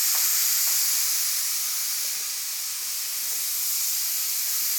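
Harbor Freight Black Widow HVLP spray gun blowing compressed air in a steady high hiss, its trigger fully pulled back with the air valve and fan wide open. It is drawing down the compressor tank in an air-consumption test.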